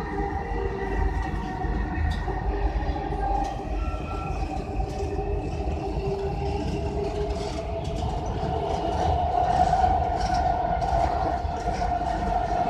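Electric Dubai Metro train running between stations, heard from inside the carriage: a steady rumble with a steady whine that grows louder in the last few seconds.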